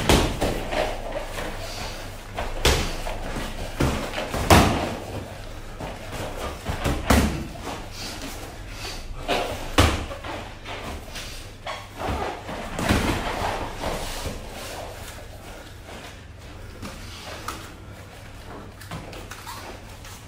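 Kickboxing sparring: gloved punches and shin-guarded kicks landing, a string of sharp thuds every second or two that thins out and softens over the last several seconds.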